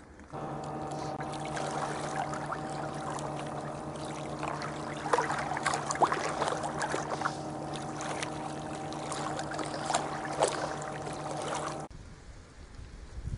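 Shallow lake water splashing and lapping around a person lying and moving in it, over a steady low drone that holds one pitch throughout. Both stop abruptly near the end, leaving a quieter outdoor background.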